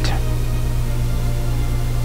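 A steady low drone with faint held tones above it, unchanging throughout, which a tagger hears as soft background music.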